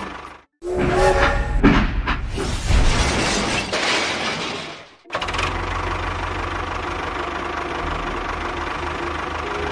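A small engine running with an even low pulse, broken by abrupt edit cuts, with a louder rattling, noisy passage in the first half.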